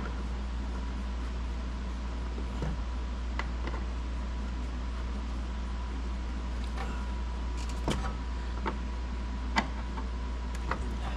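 A few light clicks and taps of a plastic camera bracket and license plate being handled and fitted, over a steady low hum.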